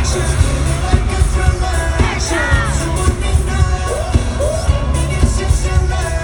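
A pop song played loud over concert speakers: a heavy, steady bass beat with singing on top.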